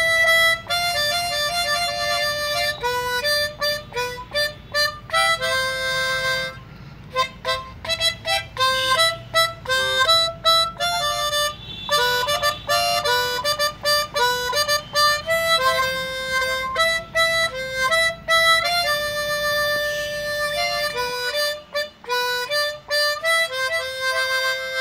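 Background instrumental music: a melody of short and held notes over a faint low accompaniment, which drops away about twenty seconds in.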